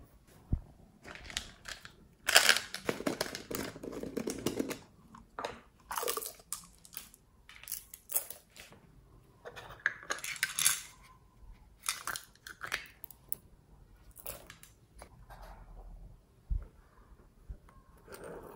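Small plastic containers of beads and glitter being handled and shaken out over slime: irregular bursts of rattling and crackling, with sharp clicks and knocks as the containers are tapped and set down.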